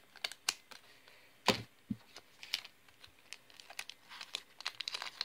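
Scissors cutting open a foil Pokémon card booster pack, then the foil wrapper crinkling in irregular sharp clicks as the cards are pulled out. The loudest snap comes about one and a half seconds in.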